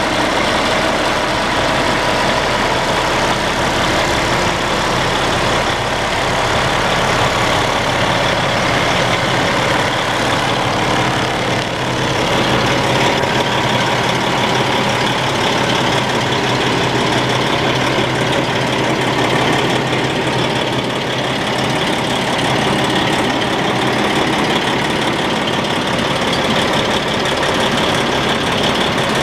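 2007 Freightliner Columbia semi tractor's diesel engine idling steadily, heard close up from beside and under the truck.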